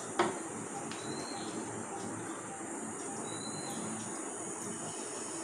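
A stainless steel tumbler set down on a wooden table with one short clink just after the start. A steady high-pitched chirring continues in the background.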